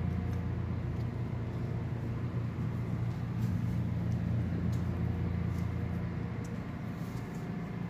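Steady low mechanical hum with a few faint ticks, like a fan or motor running in the background.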